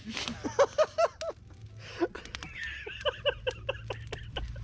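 Young people's voices laughing in quick, short high-pitched bursts, twice, with a few sharp clicks between.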